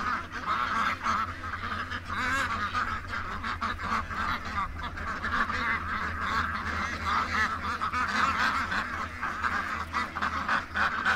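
A flock of domestic ducks quacking continuously, many calls overlapping.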